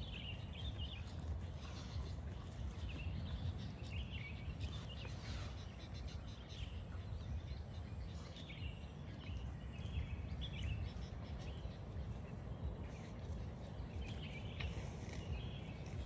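Outdoor ambience of small birds chirping every second or two over a steady low rumble.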